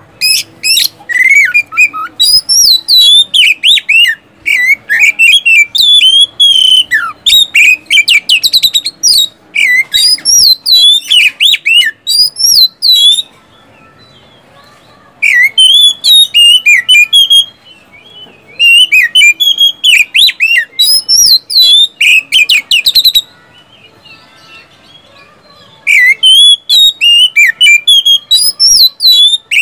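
Oriental magpie-robin (kacer) singing loudly in full song: fast runs of sweeping whistles mixed with sharp, rapid staccato notes. It comes in long bursts, broken by three short pauses.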